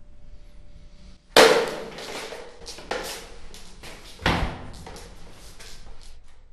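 A sudden loud crash about a second in, followed by a run of smaller knocks and a second heavy thud about three seconds later.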